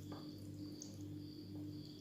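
Faint background music with a soft, steady pulse about twice a second, and a few light clicks.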